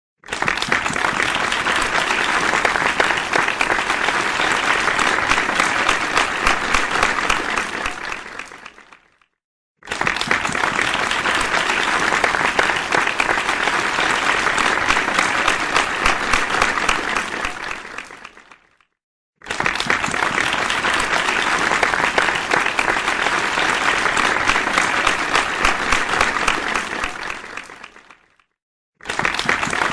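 Crowd applauding, a dense patter of many hands clapping. It comes in three takes of about nine seconds each, every one fading out to silence before the next begins, and a fourth starts just before the end.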